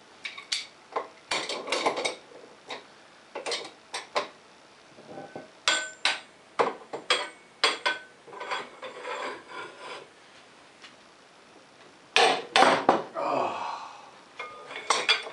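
Irregular metal clanks and sharp strikes, some with a short ring, as hand tools are worked against a seized rear axle nut on an ATV to force it loose without a wrench that fits.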